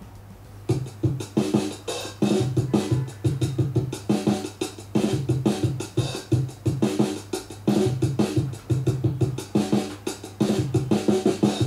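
Music with a steady drum beat playing through a Microlab M109 2.1 speaker system (4-inch woofer, two 3-inch satellites) as it is test-played, the beat starting about a second in.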